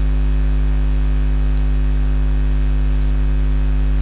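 Steady electrical mains hum, a low buzz with a row of overtones, over constant hiss on the recording.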